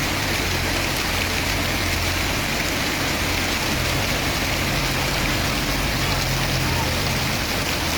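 Steady rushing of floodwater and rain, with a low steady engine hum underneath.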